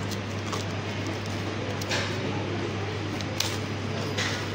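Clear plastic shrink wrap on a smartphone box crinkling and tearing in a few short bursts as it is peeled off, over a steady low hum.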